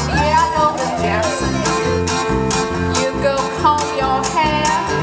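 Live band playing a country-style song: strummed acoustic guitar, electric bass, drums and accordion over a steady beat, with a vocal line on top.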